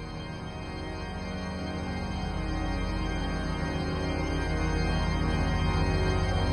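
Background music: a sustained low organ chord, growing steadily louder.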